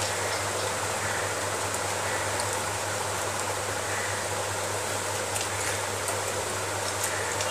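Steady hiss with a low hum, and a few faint short clicks of fingers mixing rice on a steel plate in the last couple of seconds.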